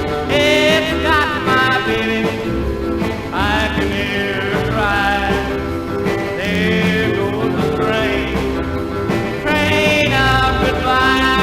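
A 1960 country rock-and-roll record playing: a singer with a small band, its bass notes running steadily underneath.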